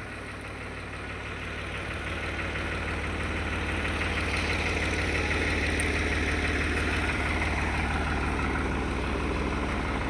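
A vehicle engine running steadily at idle, a low pulsing hum that grows louder over the first few seconds and then holds.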